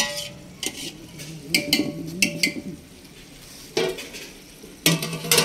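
Metal dishes and utensils clinking, with several irregular sharp clinks and a quieter gap midway, over a steady low hum.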